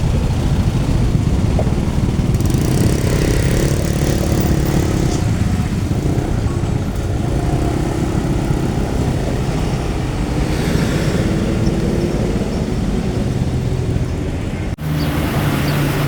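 Steady low rumble of motor vehicles running near a railway level crossing, with an engine hum that drifts in pitch. The sound drops out abruptly for an instant near the end, then carries on.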